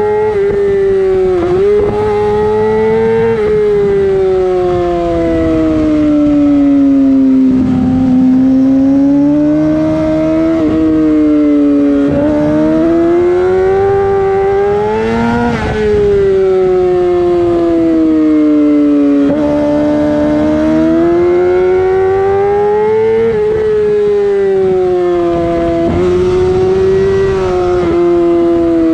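Yamaha R6 inline-four engine through a LeoVince full exhaust, revving high. The note climbs and falls in pitch again and again as the bike accelerates and rolls off.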